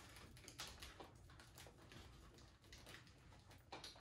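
Near silence: room tone with a few faint ticks.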